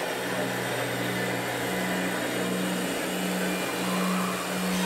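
Electronic sound module of a scale RC Scania truck playing a steady low diesel engine sound as the model drives, pulsing evenly about twice a second.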